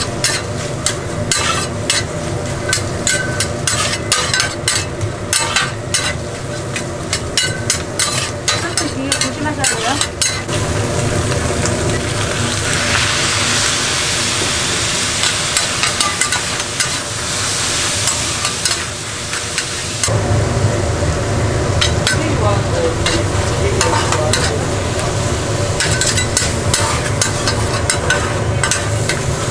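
Beef intestines (gopchang) and vegetables being stir-fried: rapid scraping and tapping of metal spatulas on the hot pan over a steady sizzle. The sizzle swells to a loud hiss partway through, and a low steady rumble comes in for the last third.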